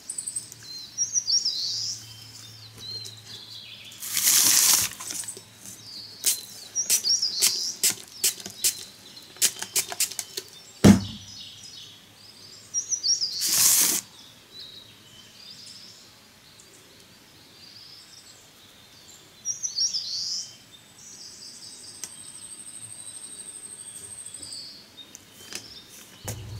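Small birds chirping now and then, with rustling and light clicking as clump foliage is handled over a plastic tray. Two louder rustling bursts come about four and thirteen seconds in, and a single sharp knock just before the middle.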